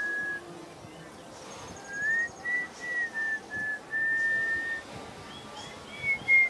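A whistled tune of clear, steady notes that step up and down in pitch, some short and some held for most of a second, with faint high bird chirps in the background.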